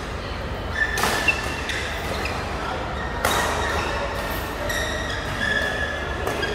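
Badminton rally: sharp racket strikes on a shuttlecock, the clearest about a second in, at about three seconds and near the end, echoing in a large hall, with short high squeaks of court shoes on the mat between them.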